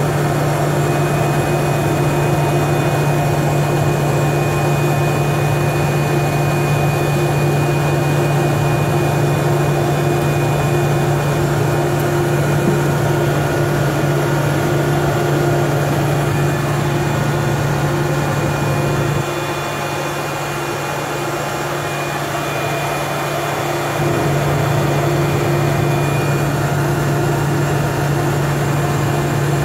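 GE H80 turboprop engine and propeller of a DHC-3 Turbine Otter seaplane running while it taxis on the water, heard from inside the cockpit: a steady drone with a thin high whine. About two-thirds of the way through the sound eases off a little for several seconds, then picks back up.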